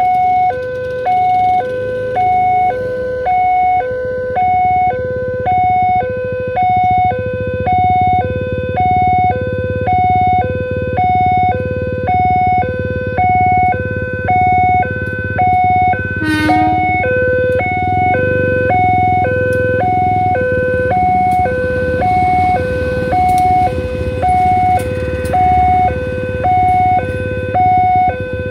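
Electronic level-crossing alarm of an Indonesian railway crossing, sounding a fast two-tone siren: a low and a high tone alternating steadily, one pair a little over every second. From a little past halfway, the low rumble of a passenger train passing the crossing builds under it.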